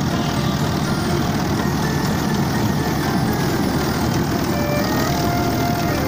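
Balkar combine harvester running under load as it harvests rice, heard close up from on board: a loud, steady, dense machine drone that does not let up.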